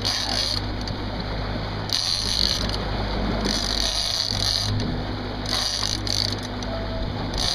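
Big-game trolling reel being cranked in spells of a second or so as the rod is pumped, a whirring that comes and goes, over the steady running of the boat's engine.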